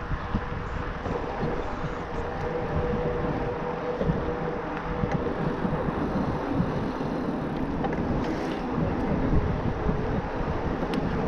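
Wind buffeting the action camera's microphone and tyre rumble from an e-mountain bike riding at speed, with a faint steady whine underneath.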